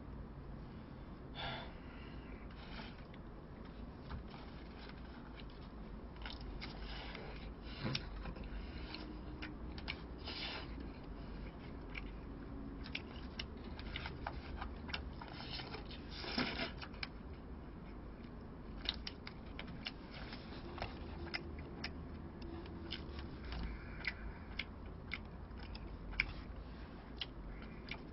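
Eating sounds: a plastic utensil clicking and scraping in a plastic takeout tray, with quiet chewing, as omurice is cut and eaten. A low steady hum runs underneath.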